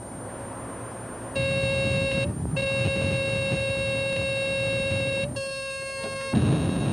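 Lane-departure warning alarm sounding in a moving car as it crosses a lane line: a steady electronic tone starts about a second and a half in, breaks off briefly, then changes tone and stops about six seconds in. The car's road rumble runs underneath.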